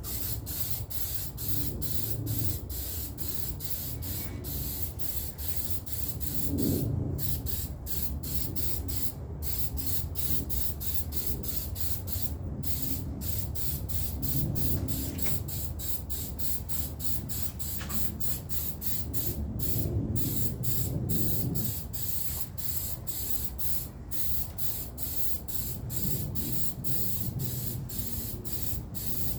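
Aerosol spray can hissing in a long run of sprays broken by frequent brief pauses, with a low rumble underneath.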